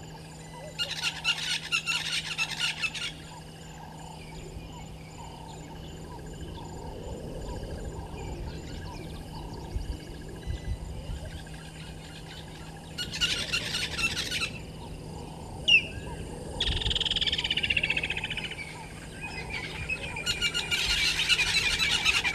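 Birds calling in four loud bursts of fast, repeated notes, with fainter calls in between.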